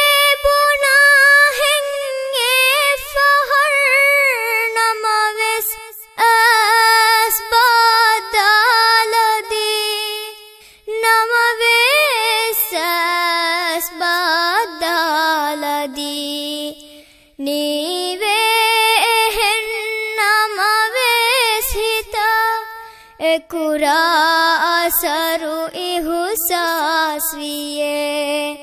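A girl singing unaccompanied, one voice carrying long, sliding melodic phrases of a few seconds each with short breaks for breath between them.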